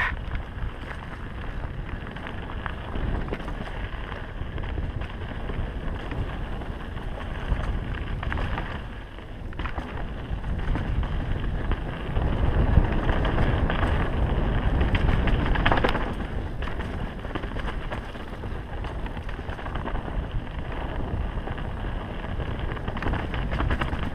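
Wind rush on the microphone of a mountain bike riding fast down a dirt singletrack, with tyre noise on the dirt and small rattles and knocks from the bike over bumps. The wind rush is loudest a little past the middle.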